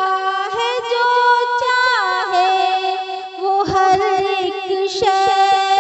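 Naat singing: a wordless vocal passage of long held notes with ornamented slides and wavers. A run of soft, quick low beats comes in about two-thirds through.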